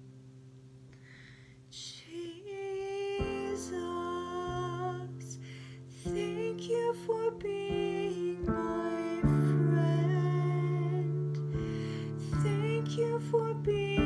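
A woman singing a slow worship song over sustained piano chords. A chord dies away first, and the voice comes in about two seconds in.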